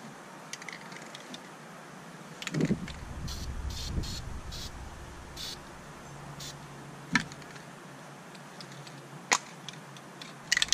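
Aerosol can of Krylon spray paint hissing in several short puffs, dusting a light coat of tan, with a few sharp clicks and knocks from the cans being handled.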